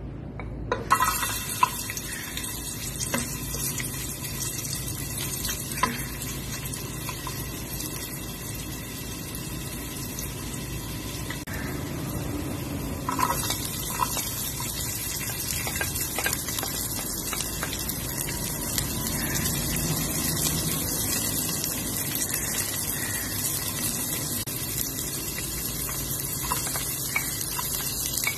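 Hot cooking oil in a pot hissing, turning into a louder, brighter sizzle about halfway through as chopped onion and garlic fry in it. A few sharp knocks sound in the first seconds and again when the onion goes in.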